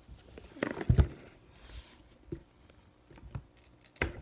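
Cardboard collector box being handled as its lid is worked open: scraping and rubbing with a few knocks, the loudest a low thump about a second in, and a sharp knock near the end.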